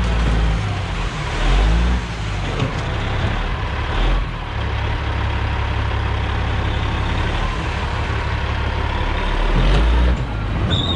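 Skid steer loader's diesel engine running hard while grading dirt, its low engine note changing several times as the machine works, with a steady clatter and hiss of the machine over it.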